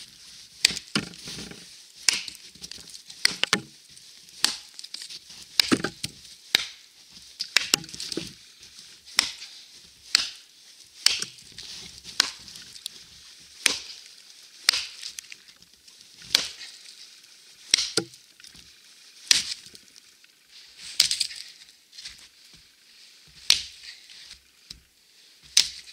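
Wetterlings Bushman axe chopping into a log: a long series of sharp, woody blows, about one a second.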